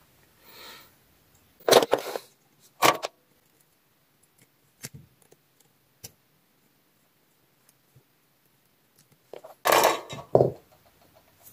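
Metal pliers and small hand tools handled on a silicone work mat while a capacitor is pulled from a charger circuit board: short clinks and clatters, louder about two seconds in and again near the end, with a few small ticks between.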